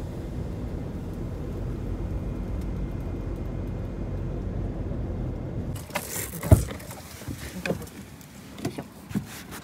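A car driving slowly, heard from inside the cabin as a steady low hum, which cuts off suddenly about six seconds in. A few clicks and knocks follow, the loudest a sharp knock soon after.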